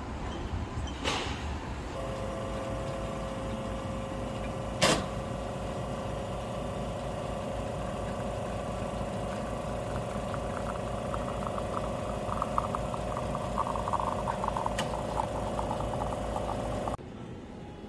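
Commercial espresso machine's pump running while two group heads pull shots into steel pitchers: a steady hum over a low even pulsing, with one sharp click about five seconds in. It starts about two seconds in and cuts off suddenly just before the end.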